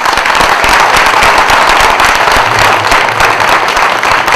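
Theatre audience applauding: a loud, dense wash of many hands clapping.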